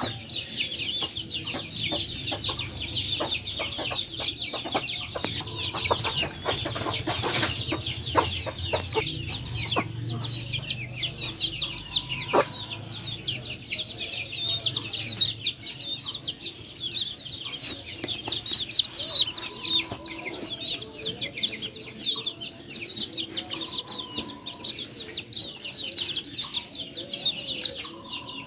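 A flock of backyard chickens: many chicks peeping continuously in a dense, high-pitched chorus, with a few lower hen clucks mixed in.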